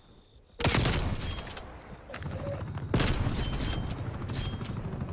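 Video game gunfire: a rapid volley of automatic weapon fire breaks out about half a second in, with a second loud volley near three seconds and shooting running on after.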